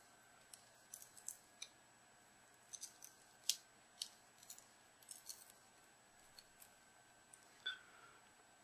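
Faint, irregular small clicks and crackles of shattered digitizer glass being prised away from the edge of a heated Samsung GT-S7560's LCD, the sharpest about three and a half seconds in, with a short squeak near the end.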